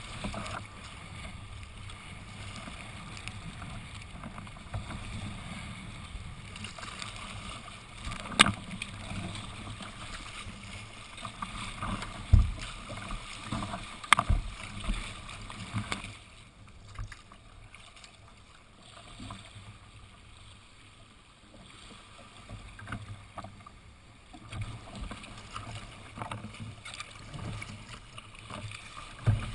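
Sea kayak moving through choppy water: a steady wash of water along the hull, with a few sharp slaps or knocks, the loudest about eight, twelve and fourteen seconds in and one more near the end. It goes quieter for a while past the middle.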